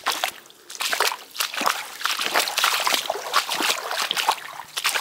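Hiking boots splashing step after step through a shallow muddy puddle, water sloshing around each stride.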